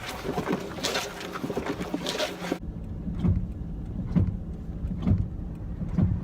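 Rustling, scuffing noise on the microphone, then abruptly a car driving slowly, heard from inside, with a low steady hum and a regular thump about once a second.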